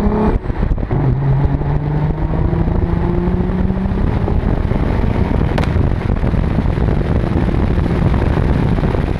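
BMW E36 drift car's engine heard from a camera mounted on its body, climbing slowly in pitch for a few seconds. About four seconds in, it gives way to a steady rushing noise of wind and tyres.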